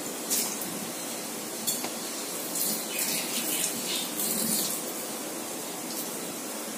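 Steel spoon clinking and scraping against an aluminium kadai and a plastic cup while a spoonful of paste is put into the pan, with a few seconds of hissing sizzle in the middle.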